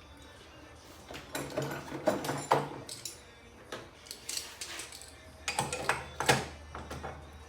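Metal clamps and a metal saw base being handled and clamped down, giving two spells of sharp clanks and rattles, the first a little over a second in and the second near the end.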